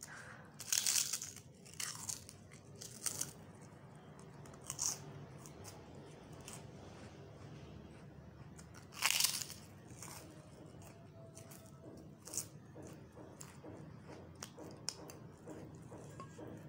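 Prawn crackers being bitten and chewed: a run of crisp crunches, several loud bites with fainter chewing crackle between, the loudest bite about nine seconds in.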